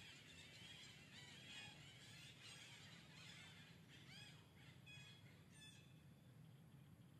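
Faint, high-pitched animal calls: a string of short chirps that rise and fall, several overlapping, dying away about six seconds in.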